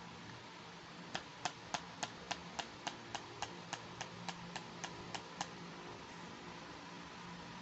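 A steady run of about sixteen sharp, evenly spaced clicks, roughly three and a half a second, starting about a second in and stopping after about four seconds, over a faint steady hiss.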